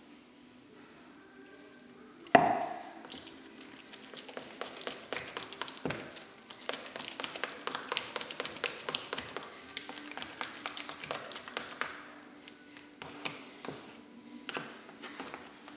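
Irregular tapping and clicking of hand work, with one loud ringing strike about two seconds in.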